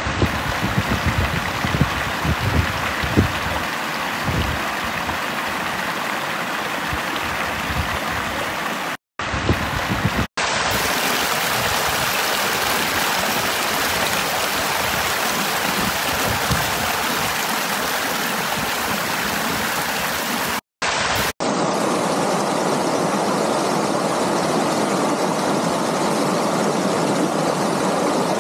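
Small mountain stream rushing and splashing over a low rocky cascade, a steady rush of water. There are some low irregular bumps in the first few seconds, and the sound cuts out briefly a few times.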